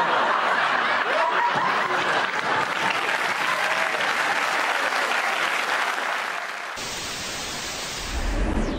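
Audience applause, steady and dense. About seven seconds in, it cuts to a steady television static hiss, with a low rumble swelling near the end.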